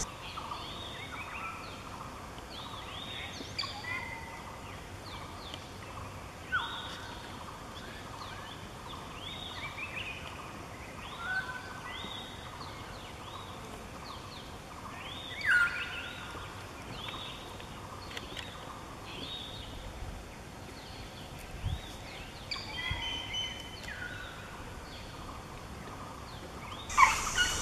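Birds calling in forest, a short falling note repeated about once a second with other calls scattered among it, and one louder falling call about halfway through.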